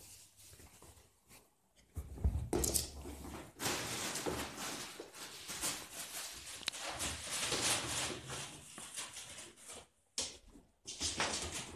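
Wrapping paper crackling and rustling as a small dog tears and roots through it, in dense irregular spells that start about two seconds in and pause briefly near the end.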